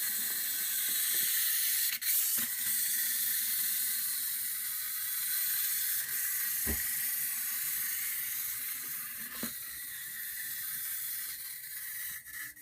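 Clockwork motor of a small wind-up toy spaceship whirring steadily as it drives on its wheels, slowly fading as the spring unwinds, with a few light knocks and a quick run of ticks near the end.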